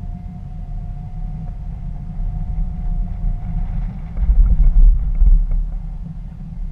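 Toyota FJ Cruiser driving over snow-covered pavement: a steady low rumble of engine and tyres with a faint steady whine above it, the rumble growing louder for about a second near the middle.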